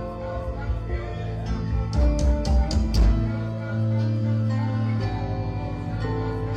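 Music with guitar, holding sustained pitched notes, with a short run of sharp percussive hits about two to three seconds in.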